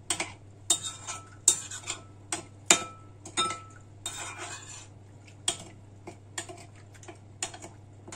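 A utensil stirring the pizza-dough liquid of yeast, sugar, salt, warm water and herbs in a mixing bowl: irregular sharp clinks against the bowl, a few ringing briefly, with a short scrape about four seconds in. The clinks come thickest in the first half and grow sparser after.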